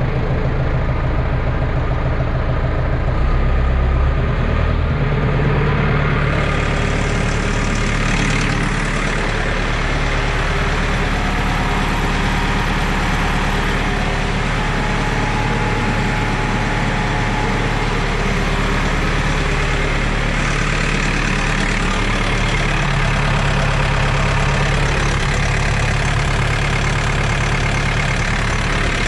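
Kukje 5015N tractor's diesel engine running steadily, its tone shifting a few times as the engine note changes.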